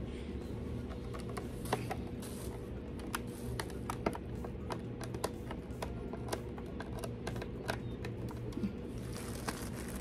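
Irregular small clicks and ticks of a screwdriver and screws against the plastic housing of a Hoover upright vacuum's base, as the screws are driven back in to reassemble it.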